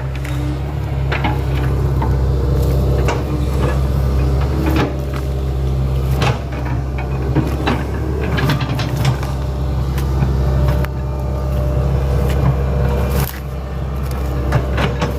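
Hitachi Zaxis 110 excavator's diesel engine running steadily, with scattered sharp knocks and clatters over it.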